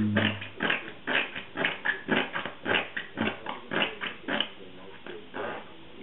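A baby making short, rhythmic grunting sounds, about three a second, that stop about two-thirds of the way in.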